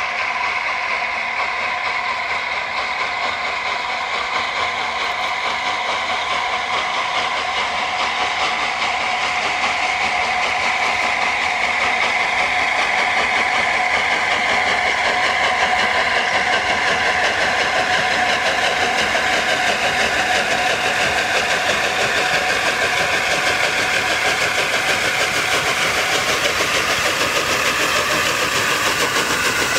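Three-cylinder LNER A2 Pacific steam locomotive working hard with a loaded train, its exhaust beats steady and growing gradually louder as it approaches.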